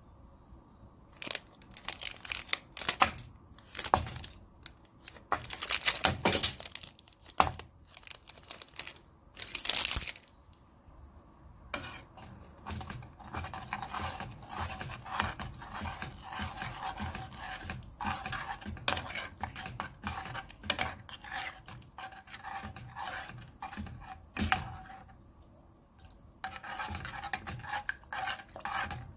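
A utensil stirring or whisking milk and melting chocolate in a metal saucepan, scraping the pan in quick repeated strokes, with a brief pause near the end. In the first several seconds there are scattered clatters and rustles as the chocolate goes into the pan.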